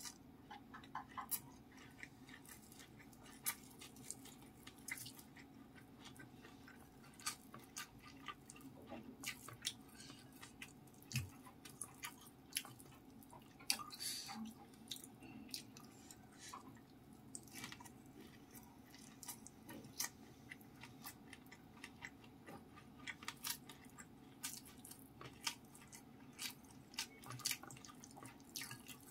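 Close-miked eating by hand: wet mouth clicks and chewing, with fingers pressing and mixing rice and sambal in a bowl. Many short sharp clicks at an irregular pace over a faint steady hum.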